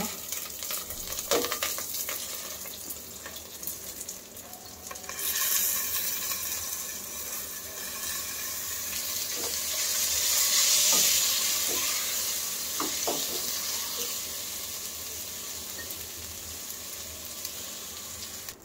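Soaked basmati rice frying in hot ghee with whole spices, sizzling, with scrapes and taps of a plastic spatula stirring it in an aluminium pot. The sizzle grows louder about five seconds in and slowly eases off toward the end.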